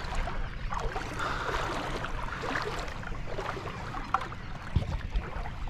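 Shallow tidal water sloshing and splashing as someone wades through it, with a steady low rumble underneath.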